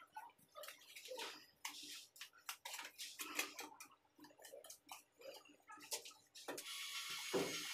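Steel hand trowel scraping and chopping through damp sand-and-cement mortar in short, irregular strokes. About a second before the end a steady hiss takes over.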